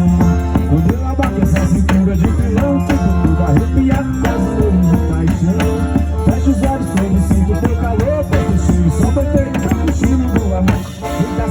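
Live forró music with no singing: pitched instruments over a steady, even percussion beat, with a brief dip in level near the end.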